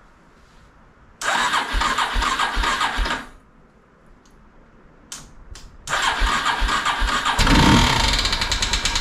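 Polaris Predator 500's single-cylinder four-stroke engine being started twice on its electric starter: a burst of about two seconds, then a longer one of about three seconds, each with heavy repeated knocking thumps. The owner takes the knock for a rod or piston beating around in the top end.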